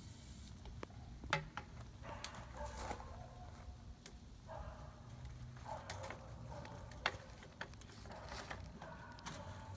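Sharp clicks and soft scraping and rustling as a homemade PVC spud gun is handled and readied to fire; the two loudest clicks come about a second in and about seven seconds in, and no shot goes off.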